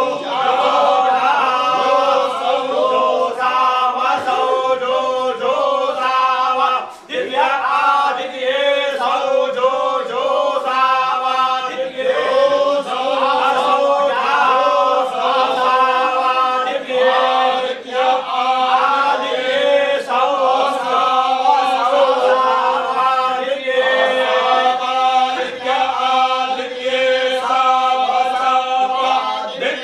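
A group of men chanting together in unison, holding a steady pitch in a continuous recitation, with a brief break about seven seconds in.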